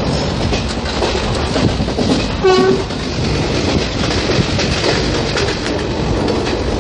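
Indian Railways passenger coach running, a steady rumble and rattle of wheels on track. About two and a half seconds in, a short horn blast sounds once, briefly.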